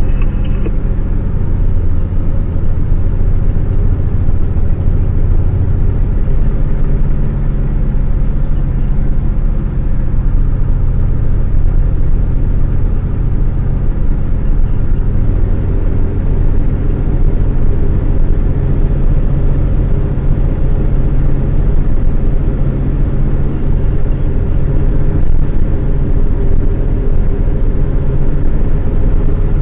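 A logging truck's diesel engine runs steadily, with a deep, continuous engine and road rumble; the engine note shifts slightly a few times.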